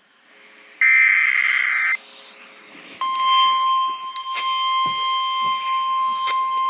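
Emergency Alert System test on NOAA Weather Radio. A one-second burst of the buzzy, warbling SAME header data comes first. After a second's pause the steady 1050 Hz weather-radio alert tone starts and is still sounding at the end, with a few faint clicks over it.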